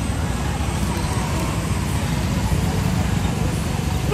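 Street traffic noise: a steady low rumble of scooters and motorcycles passing.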